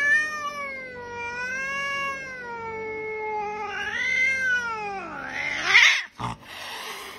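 A domestic cat yowling: one long, drawn-out call that wavers in pitch, swells upward again about four seconds in and then falls away, ending in a louder, harsher sound just before six seconds.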